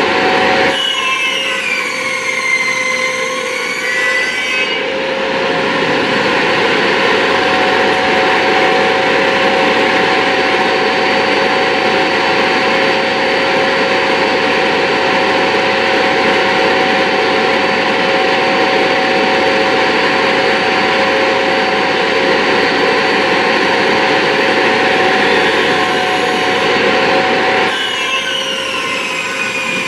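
Circular saw running continuously as it is pushed along a rail guide, cutting a shallow groove into a wooden tabletop blank. The blade is lowered only a fraction of an inch per pass.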